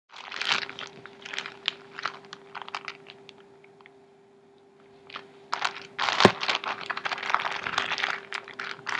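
Plastic Ziploc bag crinkling and crunching as it is handled, in irregular crackly strokes, with a quieter gap near the middle and denser crackling in the second half. A faint steady hum runs underneath.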